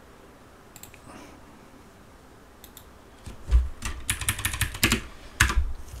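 Computer keyboard being typed on: a couple of faint taps early, then a quick run of keystrokes in the second half, the heaviest with a dull thud.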